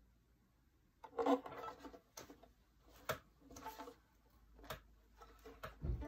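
Handling noise from a violin being set up to play: a cloth rustling and rubbing against the instrument, with light knocks on the wood. The noises come in irregular bursts, starting about a second in.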